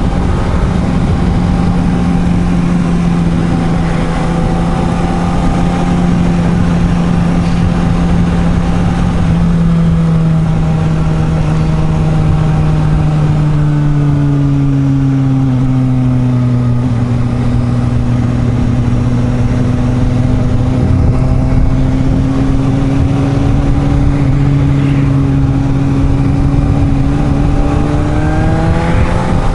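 Suzuki GSR750 inline-four motorcycle engine pulling at a steady cruise, with wind rushing over the microphone. The engine note eases lower through the middle, then climbs again near the end as the throttle opens.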